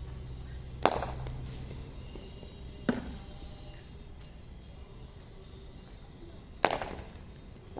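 Three sharp cracks of a cricket ball striking a bat: about a second in, about three seconds in, and near the end, the first and last loudest, each with a short echo.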